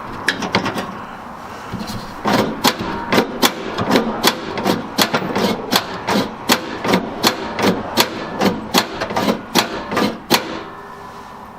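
Wrench handle tapping a nylon clip over a tailgate latch rod: a run of about two dozen sharp, evenly spaced taps, about three a second, each with a short metallic ring. The old clip has sagged and will not snap over the rod by hand.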